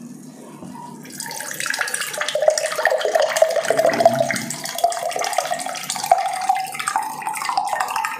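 Juice being poured from a plastic pitcher into a drinking glass: a steady pour that starts about a second in, its pitch slowly rising as the glass fills.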